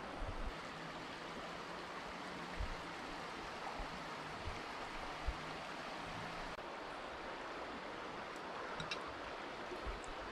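Steady rushing of the Dalaman stream flowing past, with a few faint soft knocks.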